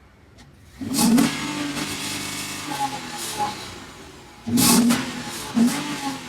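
Modified jeep's engine revved in loud throttle blips. A sudden rev about a second in slowly falls away, and a second rev comes near the end, followed by a short blip.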